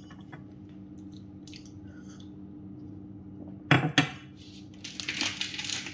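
Foil wrapper of a chocolate snack crinkling near the end, after a couple of sharp knocks about four seconds in. A steady low hum runs underneath.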